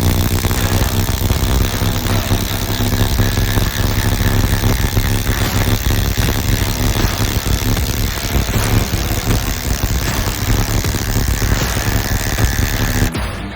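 Cordless impact tool hammering steadily as it drives a long hex-head lag screw into wood. It starts suddenly and cuts off near the end.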